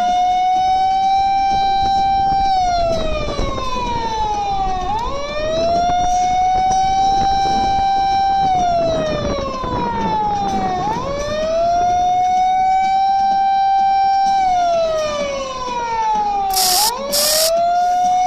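Siren on the truck carrying the Ingram, wailing in slow cycles about every six seconds. Each cycle rises quickly, holds its pitch for about two seconds, then falls slowly. Two short hisses cut in near the end.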